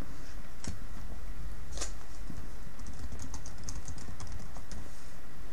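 Typing on a computer keyboard: a couple of single clicks, then a quick run of keystrokes from about two and a half seconds in, over a steady low hum.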